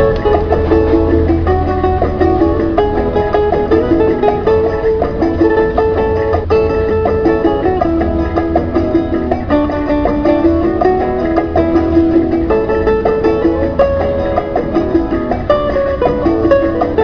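Background music played on plucked strings, a continuous run of quickly picked notes.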